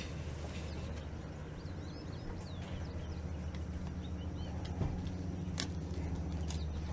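Steady low hum throughout, with small birds chirping briefly high above it a few times and a couple of faint clicks near the end.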